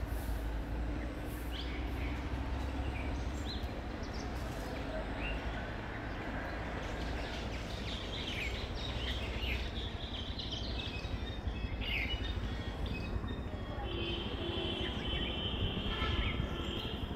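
Outdoor ambience of steady low rumble and hiss, with many short, high bird chirps scattered throughout. A steady high tone is held for a few seconds near the end.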